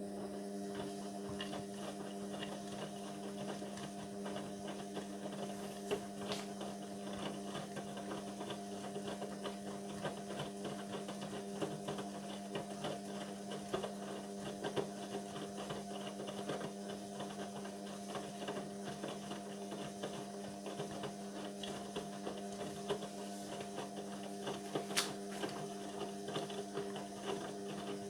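Indesit washing machine running on its synthetics programme: a steady motor hum with a crackling, pattering noise over it, which starts and stops abruptly.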